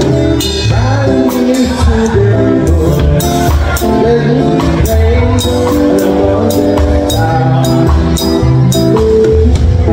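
Live band playing: a drum kit with cymbal hits keeps a steady beat under strummed acoustic guitar and electric guitar.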